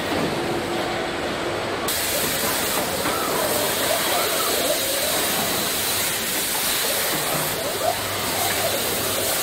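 Steady factory-floor noise of a car body shop: a dense hiss and rush of machinery and air, with faint indistinct voices in it. The hiss turns brighter about two seconds in.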